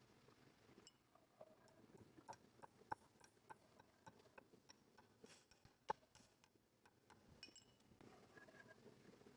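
Faint, scattered clicks and light clinks, with two sharper knocks about three and six seconds in.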